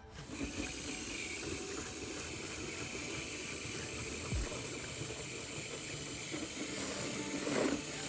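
Garden hose spray nozzle jetting water onto a travel trailer's window and ribbed siding: a steady hiss and splatter that starts abruptly and stops just before the end.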